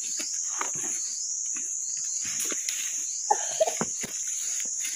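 A steady high insect drone from the forest, with footsteps crunching through dry leaves and twigs on the forest floor. A brief short vocal sound comes about three and a half seconds in.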